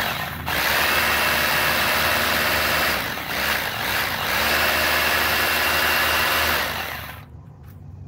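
Ralli Wolf 2-26 hammer drill's brushed motor running with no bit fitted, on a newly fitted armature and carbon brushes, spinning freely. About three seconds in it slows briefly and speeds back up, then it stops about seven seconds in.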